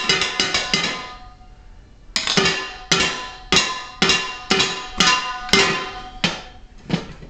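Kitchen items struck as improvised percussion: sharp hits with a ringing tone in a quick rhythm that stops about a second in. The hits start again a second later at a steadier, slower beat, then thin out to a few last hits near the end.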